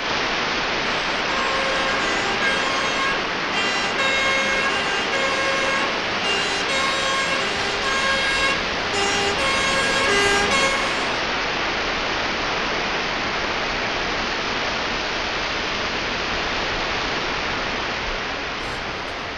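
Emergency-vehicle two-tone siren alternating between a high and a low note over a loud, steady rushing noise. The siren stops about eleven seconds in, and the rushing noise carries on.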